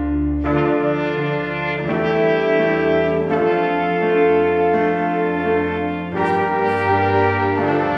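Orchestral music from a home studio recording: sustained brass chords that move to a new chord every one to two seconds.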